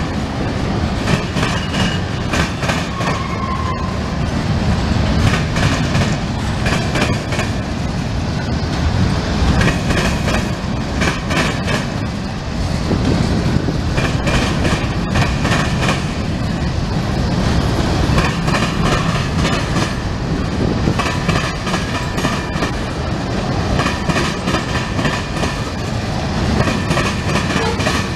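Freight cars rolling past close by: a steady rumble of steel wheels on rail with repeated clicking and clanking of wheels and couplers, and a brief high squeak about three seconds in.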